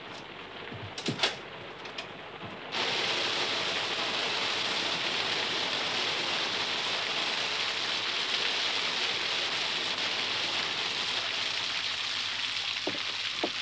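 A couple of sharp knocks, then about three seconds in water suddenly starts gushing down in a steady, heavy, splashing rush.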